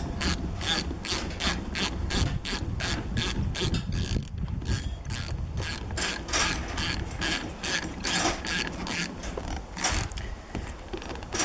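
Ratchet wrench clicking as it tightens the bolts of a motorcycle front brake caliper, about three clicks a second, pausing briefly about four seconds in and then going on.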